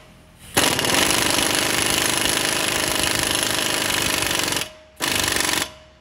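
Impact wrench hammering in one long burst of about four seconds, then a second short burst near the end. It is spinning a stud installer tool to pull a new wheel stud through the wheel hub until it seats.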